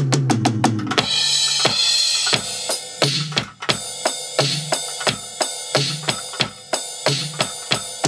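Roland SPD-SX sampling pad struck with drumsticks, with a KD-7 kick trigger, playing drum-kit samples. It opens with a tom fill into a cymbal crash about a second in, then settles into a steady beat of kick, snare and cymbal hits.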